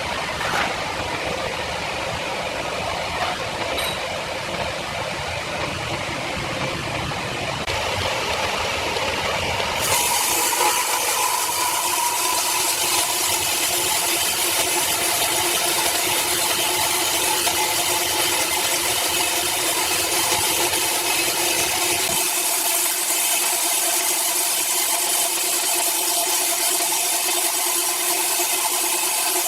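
Power saw cutting through timber: continuous machine noise that grows louder about a third of the way in, becoming a steady whine with a hiss.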